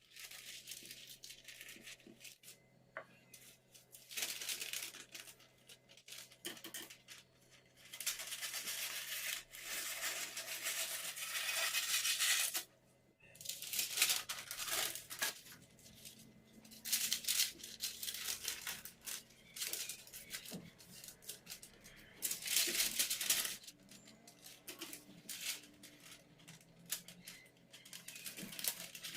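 Irregular bursts of rustling and scraping from handling ingredients and utensils, each lasting a second to a few seconds, over a faint steady hum.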